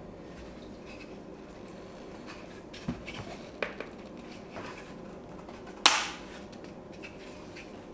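3D-printed PLA plastic pattern pieces clicking and knocking as they are handled and clipped together on a workbench: a few small knocks, then one sharp, loud snap about six seconds in.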